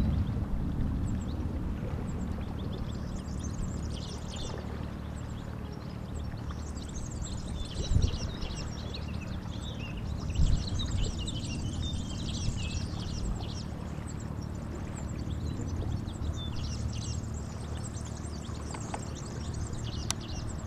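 Small birds chirping and twittering over a steady low rumble, with two short knocks near the middle.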